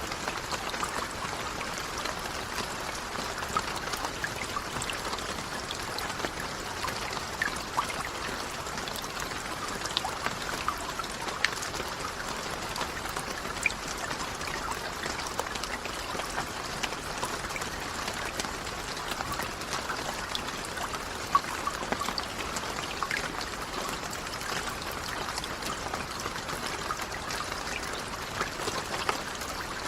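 Steady rain falling: an even hiss with many small drop ticks scattered through it, a few of them louder.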